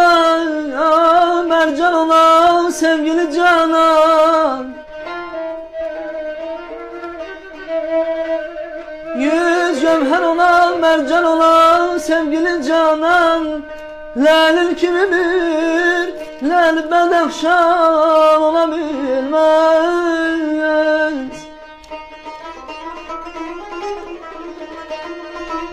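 Male voice singing Azerbaijani mugham in three long, ornamented, wavering phrases, accompanied by tar, kamancha, Turkish saz and guitar. About three-quarters of the way through the singing stops and the strings carry on alone, softer.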